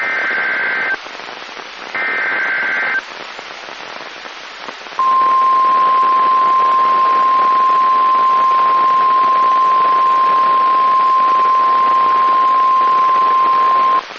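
NOAA Weather Radio alert over steady radio static: the last two of three SAME header data bursts, each about a second of raspy two-pitch warbling, then, about five seconds in, the steady single-pitch 1050 Hz Warning Alarm Tone held for about nine seconds, the signal that a warning message follows.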